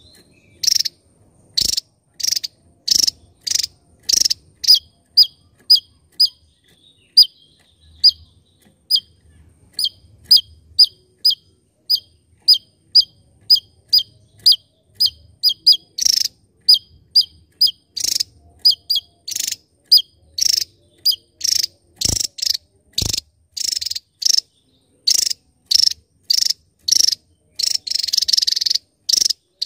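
Javan tesia singing: a long run of short, sharp, high notes, about two a second, many with a downward flick at the end, growing louder and closer-packed in the second half. Two dull low thumps come about three quarters of the way through.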